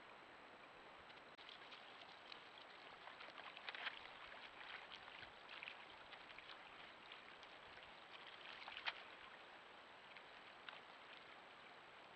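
Faint small splashes and gurgling crackles of water, loudest about four and nine seconds in, over a steady trail-camera hiss and a thin high tone.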